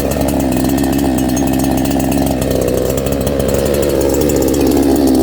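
Two-stroke 68cc chainsaw engine running steadily at a constant speed, with a slight waver in pitch a little past the middle.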